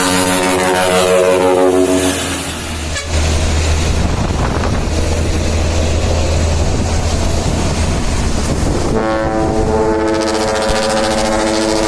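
Dump truck's ship-style multi-trumpet air horn sounding a steady chord, which stops about two and a half seconds in. A low, steady truck engine rumble follows, and about nine seconds in the horn chord starts again and holds to the end.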